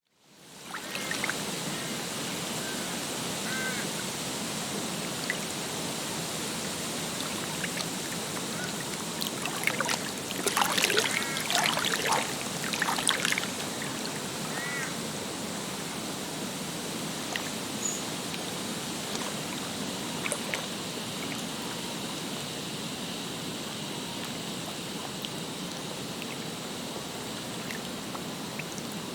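Lake ambience: water lapping and trickling steadily, fading in at the start, with a few short bird calls and a louder spell of splashing about ten seconds in.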